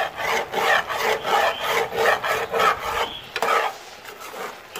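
Metal spoon scraping the bottom of a pan as it stirs thick grated-carrot halwa mixture with the milk nearly cooked off, kept moving so it doesn't stick. Quick scraping strokes, about four a second, stop about three and a half seconds in, with one more stroke just after.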